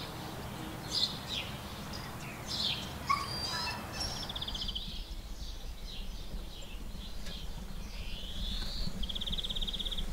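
Small songbirds chirping and calling, with a short rapid trill about four seconds in and again near the end, and rising whistled calls. A steady low rumble runs underneath.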